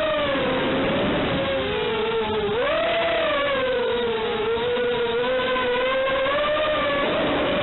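Electric motor and propeller whine of an FPV model aircraft in flight, its pitch wavering up and down with the throttle, with a dip and quick rise about two and a half seconds in.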